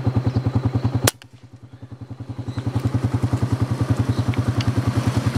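A small engine running with a rapid, even putter. It drops away abruptly after a sharp click about a second in, then grows steadily louder again.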